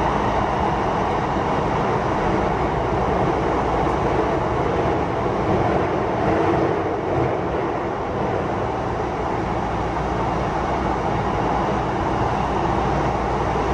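Steady running noise of a Sotetsu 20000 series electric train heard from inside the passenger car: wheels on rail and body rumble at an even speed.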